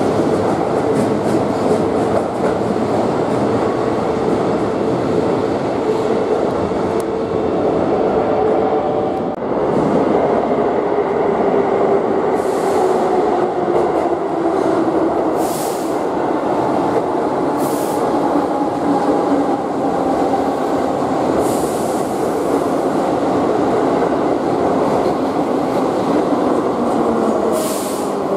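Keihan electric trains running in an underground station. First a train moves along the platform with a steady motor tone. Then, after a cut, a 1000-series train pulls in, its motor whine falling slowly in pitch as it slows, with a few brief high hisses.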